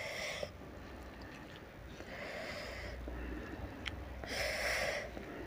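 Three short breaths through the nose, each under a second, while eating close to the microphone, with a faint click or two of fingers in the food.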